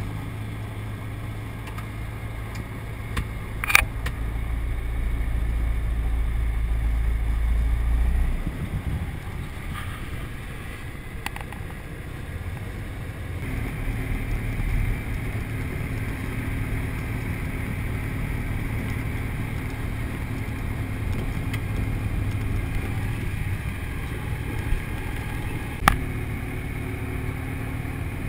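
Single-engine light aircraft's piston engine running with its two-blade propeller turning while the aircraft taxis. The engine note shifts about a third of the way in and again about halfway. Two short sharp clicks come about four seconds in and near the end.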